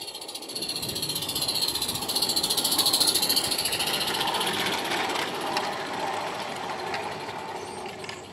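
Small live-steam garden-railway locomotive, a Lady Anne, chuffing rapidly as it passes close by, with its carriages rattling along the rails behind it. The sound builds to its loudest about three seconds in and then fades.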